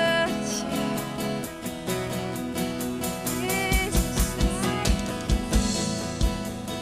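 Worship band playing an instrumental passage: guitar over a drum kit, with kick-drum beats coming more often in the second half.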